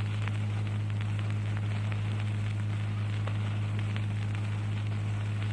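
Recording noise: crackling and hiss over a steady low hum.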